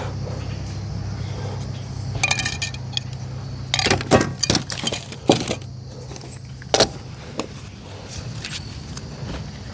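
Metallic clinks and rattles from objects being handled, in short bunches, over a steady low hum that stops about two-thirds of the way through.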